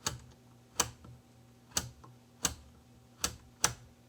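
Six sharp, irregularly spaced clicks of small hard objects, over a faint steady electrical hum.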